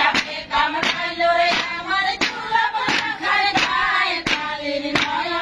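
A group of women singing a roof-beating work song while striking a concrete rooftop in unison with wooden beaters. The sharp thwacks come about three every two seconds, keeping time with the song.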